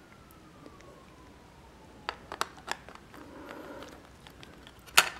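Hands handling a silver dollar and its coin case: a few light clicks about two seconds in, a soft rustle, then a sharp click near the end.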